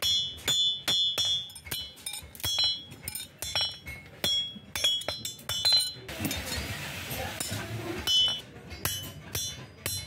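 Hand hammer striking a steel strip on a steel anvil block: a steady run of ringing metallic blows, about two to three a second. The blows break off for a couple of seconds in the middle, where there is a noisy hiss, and then resume.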